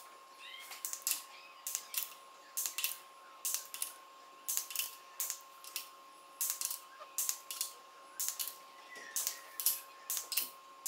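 Ratchet wrench clicking in short runs of quick clicks, again and again, as it is swung back and forth tightening the camshaft cap bolts on a Toyota 2JZ cylinder head. A faint steady high hum sits underneath.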